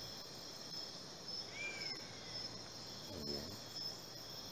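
Crickets chirring steadily in a high, thin band, with a faint short whistle near the middle and a brief murmur of a voice about three seconds in.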